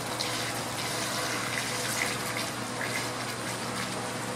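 Coolant (a 50-50 antifreeze and water mix) pouring steadily from a plastic jug into a plastic funnel, refilling the car's cooling system after a radiator swap.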